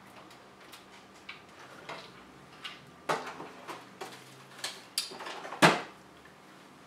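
Kitchen clatter from things being moved about in an open refrigerator and on the counter: a string of short knocks and clinks, the loudest knock about five and a half seconds in.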